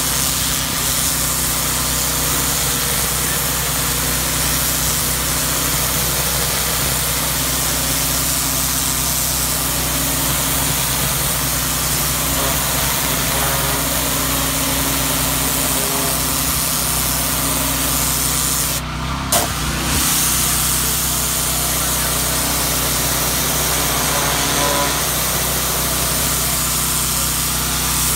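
Pressure washer running steadily while its wand blasts water against a sailboat's hull, washing off the bottom growth after haul-out. About two-thirds of the way through, the spray cuts out for under a second and then comes back on with a click, while the motor keeps running.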